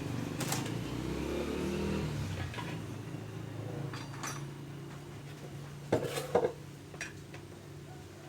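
Several light metallic knocks and clicks, the two loudest close together about six seconds in, over a steady low hum. This is typical of a metal part being handled and set down.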